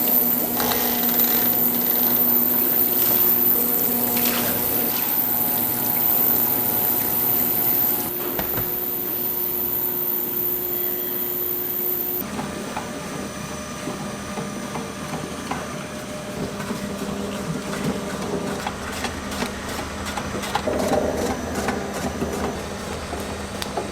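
Factory machinery running with a steady hum, changing abruptly a couple of times. Later it is joined by frequent light clicks and knocks.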